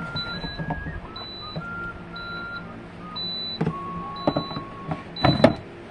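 Plastic drip tray of an electric grill clattering and knocking as it is pulled out, lifted and handled, with the loudest knock a little before the end. A thin tune of held tones that change pitch in steps runs underneath.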